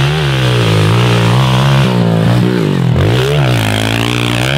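Small Honda dirt bike's single-cylinder engine revving under load on a dirt trail, its pitch dropping and rising several times as the rider works the throttle through the turns.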